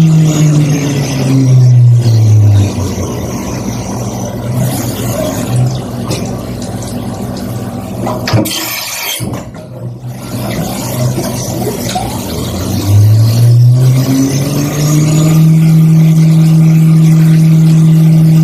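CNC milling machine spindle winding down in pitch to a stop. A quieter stretch follows, with a short loud hiss about eight seconds in, and then the spindle winds back up to a steady speed. This is the sound of a tool change before the chamfering pass.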